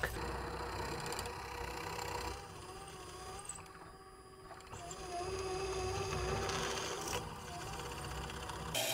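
Drill press running, its bit boring pin holes into a hardwood handle: a steady motor hum with a wavering whine, quieter for a moment about four seconds in.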